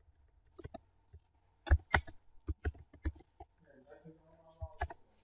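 Keystrokes on a computer keyboard: a handful of separate, sharp clicks at irregular intervals as a word is typed.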